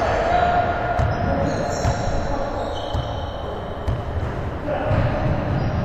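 Basketball bouncing and thudding on a hardwood gym floor several times at an uneven pace, echoing in a large gymnasium.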